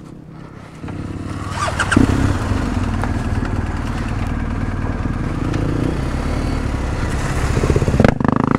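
Motorcycle engines running close by, coming in about a second in with a quick rise in revs near two seconds, then running steadily and growing louder briefly near the end.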